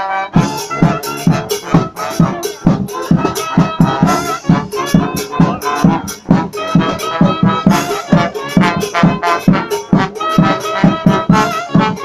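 Second-line style brass band playing live: horns over a fast, driving drum beat, the full band coming in together just after the start.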